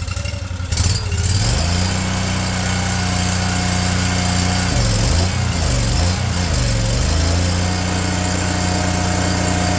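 Tracked stump grinder's engine running at raised revs, its speed climbing about a second and a half in, then sagging and recovering twice near the middle as the machine is driven on its tracks.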